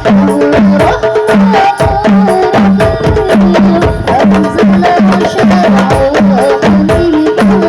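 Hadroh-style percussion music: frame drums with a deep, pitched bass drum keeping a steady repeating beat under a wavering melody.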